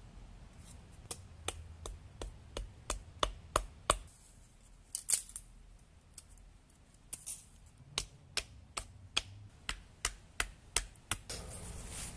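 A knife cutting into a wooden stick in sharp repeated strokes, about three a second, with a pause of a few seconds in the middle that holds a brief scrape.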